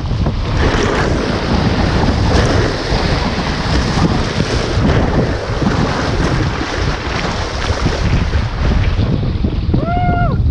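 Wind buffeting the microphone over the rush and splash of breaking waves against a sea kayak surfing through choppy water, with paddle strokes through the spray. A brief high call that rises and falls sounds near the end.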